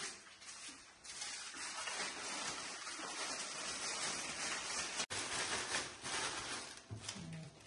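Clear cellophane wrap crinkling and rustling in uneven handfuls as it is gathered by hand around a fruit basket.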